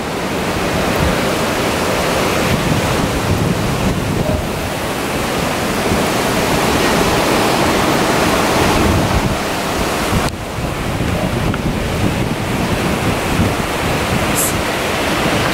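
Typhoon-force wind blowing through palm trees and buffeting the microphone: a loud, unbroken rush of noise that eases briefly about ten seconds in.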